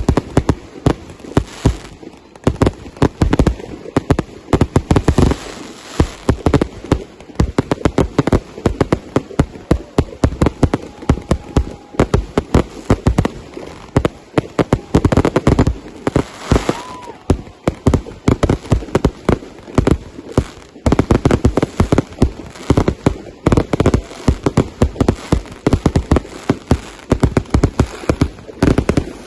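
Fireworks going off in a dense, continuous barrage of bangs and crackles, many per second.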